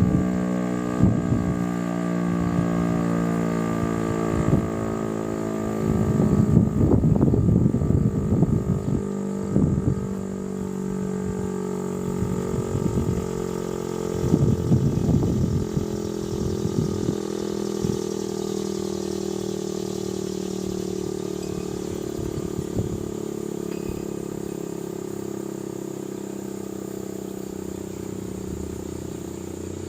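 Federal Signal STL-10 warning siren winding down after its 30-second test alert, its tone sliding slowly lower and fading as the rotor coasts. Two stretches of irregular rumbling bursts break in, about six seconds in and again around fourteen seconds.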